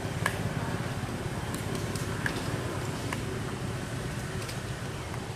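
Steady low outdoor rumble, like distant traffic or wind on the microphone, with a few brief high chirps.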